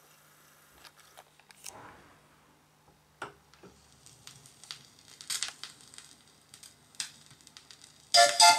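Stylus of a Sherwood PM-9805 belt-drive turntable tracking the lead-in groove of a vinyl record: scattered clicks and pops of surface noise over a faint hum. The music comes in just before the end.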